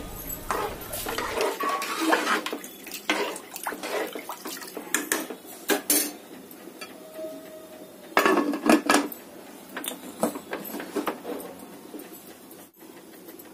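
A metal ladle stirring rice, dal and water in an aluminium pressure cooker, clinking and scraping against the pot amid sloshing water, with the cooker's lid being fitted on. Repeated clinks and clanks, loudest in a cluster about eight seconds in.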